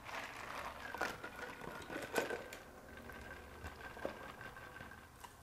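Faint eating and drinking sounds: scattered soft clicks and rustles of a sandwich being pulled apart and a soda cup tipped up to drink from, with a faint steady high tone behind them from about a second in.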